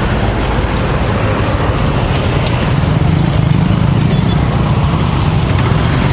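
Road traffic: motor vehicles passing on the street, with a low engine drone growing louder about halfway through as one comes close.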